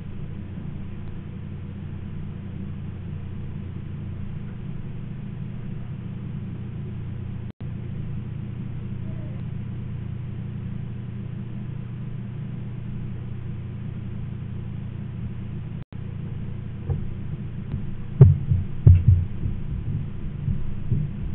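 A steady low hum or rumble, broken twice by an instant dropout. Several louder, irregular low knocks and thumps come in the last few seconds.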